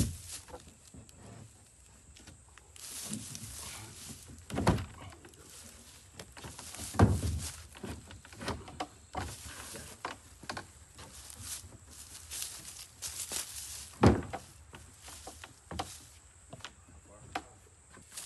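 Scattered knocks and thuds of plywood outhouse wall panels being pushed and shifted into place on a wooden floor deck, with footsteps on the boards. Two thumps, about seven and fourteen seconds in, stand out as the loudest.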